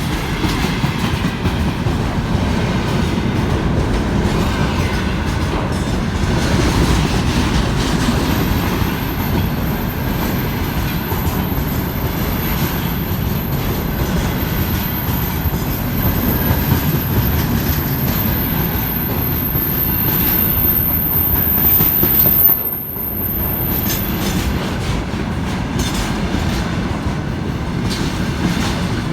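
Train behind a 2ES6 Sinara electric locomotive rolling past, with steady wheel-and-rail rumble and clickety-clack. About eight seconds in, a thin, very high-pitched wheel squeal sets in; it is strongest around twenty-two seconds and stops about twenty-five seconds in.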